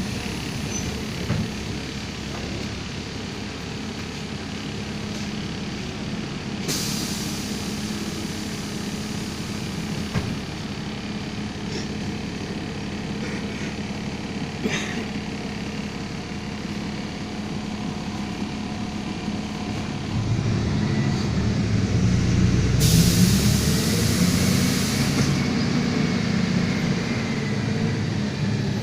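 Iveco CC170E22 city bus's diesel engine running steadily, then growing louder and rising in pitch about twenty seconds in. Two bursts of compressed-air hiss, a short one about seven seconds in and a longer one a little past twenty seconds.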